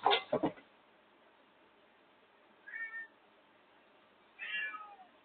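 A quick clatter of knocks right at the start, then a domestic cat meowing twice: a short meow about three seconds in, and a longer one a second and a half later that falls in pitch at its end.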